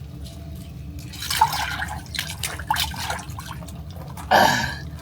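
Water splashing and dripping in an ice-fishing hole as a small walleye is pulled up out of it, with a louder burst of splashing about four seconds in.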